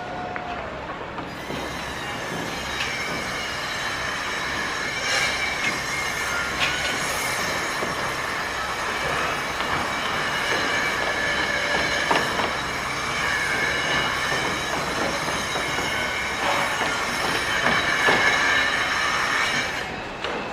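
Sustained high-pitched metal-on-metal squealing, several steady tones layered together, with scattered knocks. It builds gradually and dies away shortly before the end.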